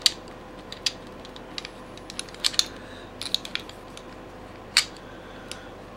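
Irregular sharp metallic clicks and clacks as the steel slide and frame of a 1911 pistol are handled and fitted together during reassembly, about a dozen in all.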